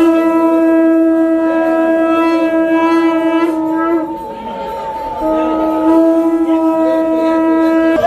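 Conch shells (shankha) blown during aarti in long, steady blasts; the blast breaks off about four seconds in and starts again about a second later.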